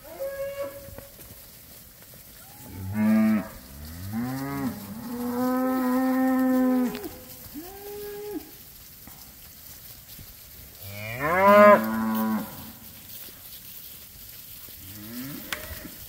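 Cattle mooing, about six calls from several animals in the herd: one long drawn-out moo midway, and the loudest call a little over two-thirds of the way through.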